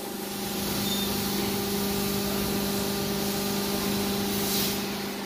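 Hydraulic scrap baling press running: the power pack's steady hum with an even hiss of oil flow as the cylinder swings the hinged lid down over the scrap.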